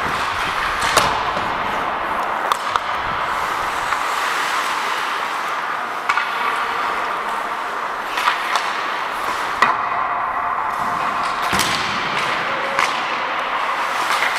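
Ice hockey in play: a steady rush of skating noise with about nine sharp knocks of sticks and puck scattered through it.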